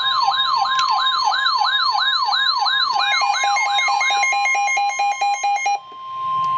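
Weather alert radio alarm signalling a severe thunderstorm warning. A fast repeating rising siren sweep plays over a steady tone, then about three seconds in it switches to rapid alternating high and low beeps. After a brief break near the end, a single steady alert tone sounds.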